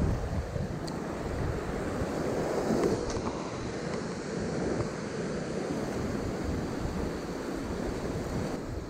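Sea waves breaking and washing over shoreline rocks in a steady rush of surf, with wind buffeting the microphone.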